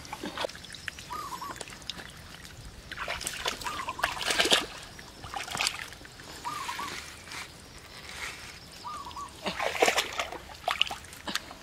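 Water splashing in bursts, twice, as a bucket hung from a bamboo swing-pole frame is swung through the canal and tipped out. A short wavering chirp recurs every two to three seconds.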